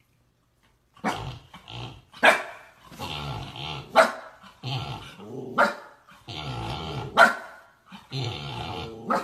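Husky puppy growling and barking. Sharp yaps come about every second and a half, with rough growling between them, starting about a second in.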